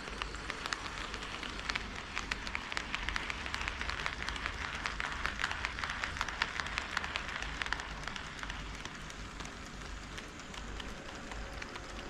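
HO scale model train running on the track, its wheels clicking rapidly over the rail joints with a steady rushing hiss. The sound swells, then eases after about eight seconds as the train passes.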